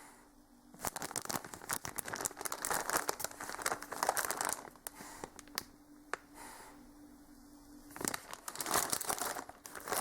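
Plastic packaging crinkling as it is handled and pulled open, in two spells with a quieter pause between.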